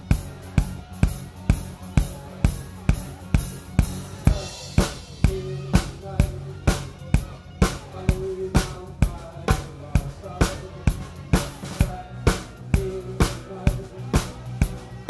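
Drum kit played live with a band, close up: a steady beat of bass drum and snare hits, about two to three a second, over pitched bass and guitar notes. A cymbal crash comes about four seconds in.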